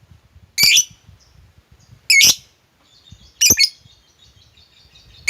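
Lovebird giving three loud, short, shrill calls about a second and a half apart, with faint rapid chattering starting partway through.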